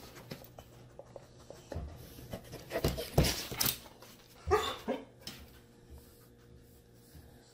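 A dog with its front paws up on a kitchen counter, panting, with scattered knocks and scrapes of paws and claws against the counter and sink; the loudest knocks come about three seconds in and again about four and a half seconds in.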